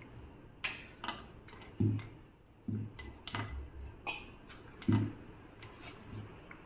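Wooden rolling pin working oiled dough on a countertop: about a dozen irregular light knocks and clicks as the pin is set down, lifted and rolled. The firmest knocks come near 2 s, near 3 s and near 5 s.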